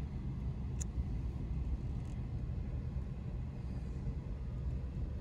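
Steady low rumble of a car running.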